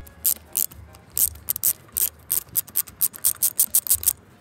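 Socket ratchet wrench clicking in quick runs as it loosens a thermostat housing bolt; the clicks come faster near the end.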